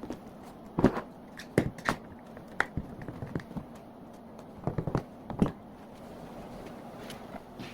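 Irregular knocks and taps of objects being handled and set down, about a dozen over several seconds, loudest about a second in and again near five seconds in.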